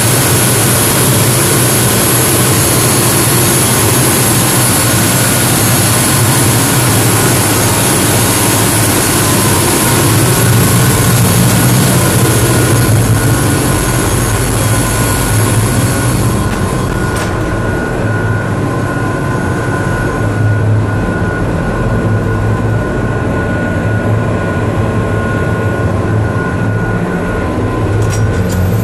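Crew boat's marine diesel main engines running steadily at about 1870 rpm underway, heard in the engine room: a loud, steady din with constant whining tones on top. The highest hiss dulls about halfway through.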